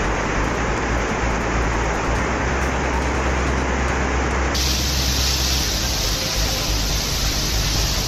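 Floodwater rushing through a street as a steady, loud rush of noise over a low rumble. A little past halfway it cuts abruptly to a hissier rush of water.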